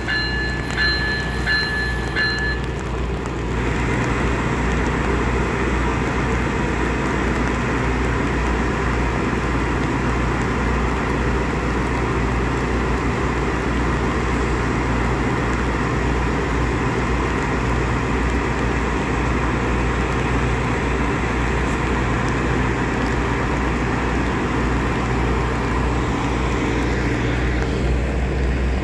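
ACE diesel passenger train at a station platform: a high wheel squeal in the first couple of seconds dies away, leaving the steady low rumble and hum of the train's engine running.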